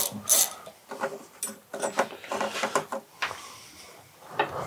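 Scattered clicks and clinks of hand tools on metal, a ratchet and a spanner working the fuel tank's mounting bolts on a moped. The clicks come close together early on and thin out to a few faint ones near the end.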